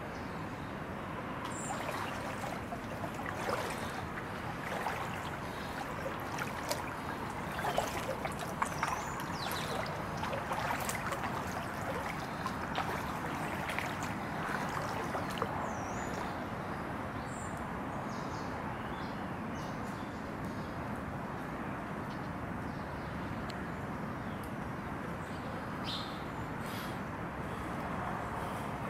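Outdoor ambience over standing floodwater: a steady wash of noise with scattered light clicks and small splashes, and a few short, faint bird chirps.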